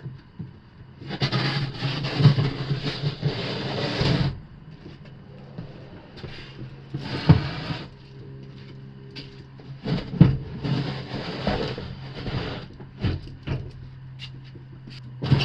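Wooden cabinet boxes being slid and scraped across the van floor in several pushes, with sharp knocks as they are set down and bumped into place.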